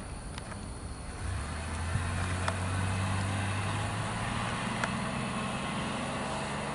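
A motor vehicle's engine running: a low steady hum comes in about a second in and holds, with a few faint sharp ticks over it.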